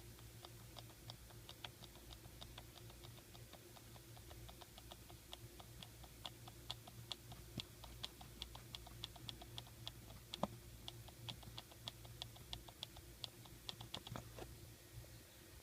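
Air conditioning in a 2001 Lexus RX 300 making faint, rapid, irregular clicking, about three to four clicks a second, over a low steady hum.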